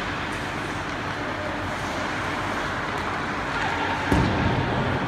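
Ice hockey game sound in an indoor rink: a steady wash of arena noise with a few faint clicks, and a louder thump just after four seconds in.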